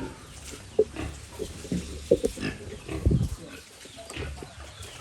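Pigs grunting: a series of short grunts, the loudest a little after two seconds in and around three seconds in.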